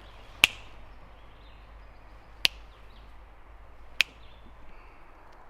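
Three sharp clicks, spaced about one and a half to two seconds apart, over faint steady outdoor background.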